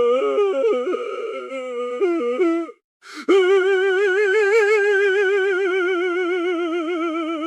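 A man crying aloud: a faltering, broken sobbing wail, a sharp gasping breath about three seconds in, then one long, high, quavering wail held for over four seconds.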